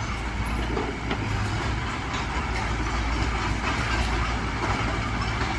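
Diesel engine of heavy earthmoving machinery running steadily under load, with faint scattered metallic clicks.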